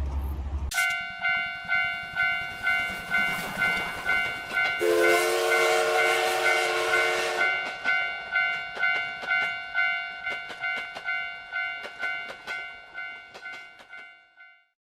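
Japanese railroad crossing warning bell ringing with its steady "kan-kan", about two strikes a second, starting about a second in. A train horn sounds for about three seconds midway, and the train's wheels click over the rail joints as the ringing fades out near the end.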